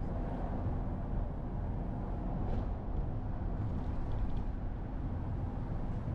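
Steady low rumble of wind and road noise from travelling along a street, at an even level, with a faint steady hum underneath.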